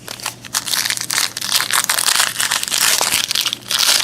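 Plastic trading-card pack wrapper crinkling as it is handled and torn open. The crinkling starts about half a second in and dips briefly near the end.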